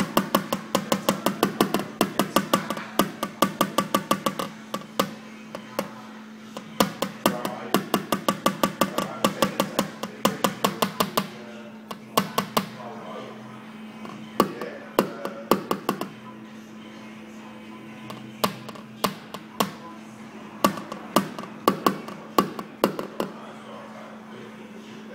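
Ball-peen hammer tapping lightly and quickly on a car's sheet-metal panel, about five or six taps a second in runs of a few seconds with short pauses between, over a steady low hum.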